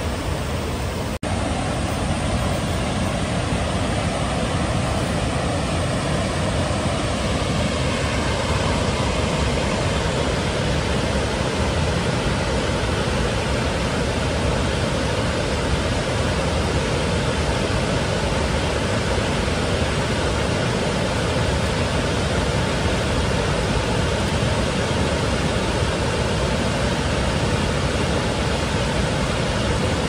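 Chinda Falls, a broad waterfall about 20 m high and 110 m wide on the Ōno River, giving a steady, even rush of falling water. It breaks off for an instant about a second in, then carries on unchanged.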